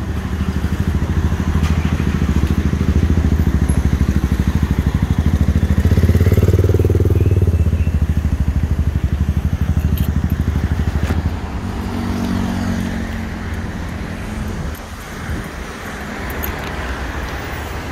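Vehicle engines running close by, with a vehicle passing that is loudest about six to seven seconds in; the engine noise drops after about eleven seconds.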